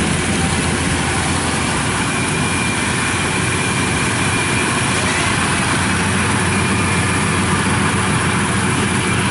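Yanmar 82 rice combine harvester's engine running steadily under load as it cuts and threshes rice, an even drone with a thin high whine coming in about two seconds in.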